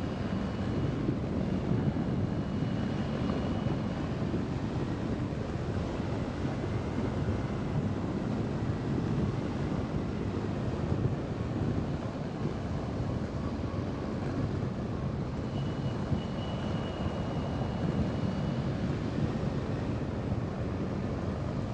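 Steady rush of airflow over the microphone as an ultralight motor-glider trike soars in a thermal. A faint, thin high whistle comes in twice, early and again near the end.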